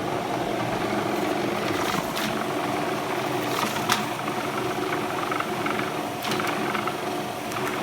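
Seongjin Machinery sorting machine running with a steady mechanical hum, with a few sharp clicks and knocks scattered through it.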